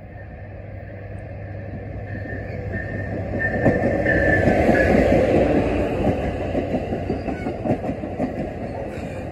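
A train approaching and passing, growing louder to a peak about halfway through and easing off after, with rapid clicking of the wheels over rail joints as the cars go by.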